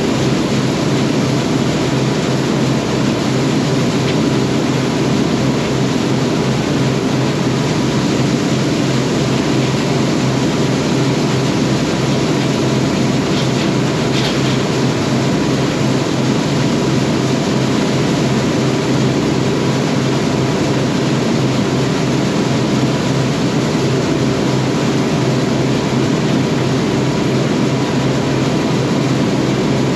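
Combine harvester running with its threshing machinery engaged, a steady, unbroken drone of engine and separator.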